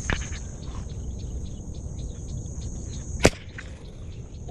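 A tiksay fishing spear gun fires once about three seconds in, a single sharp crack. A steady insect chirring carries on behind it.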